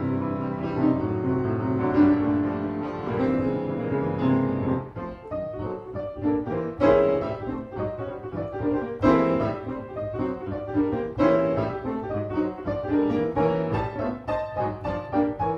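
Solo piano: held chords ringing for the first few seconds, then a series of separately struck, accented chords that quicken into faster repeated notes near the end.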